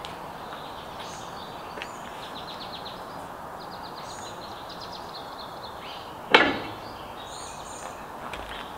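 Outdoor background noise with birds chirping in quick repeated notes, and one sharp loud knock about six seconds in.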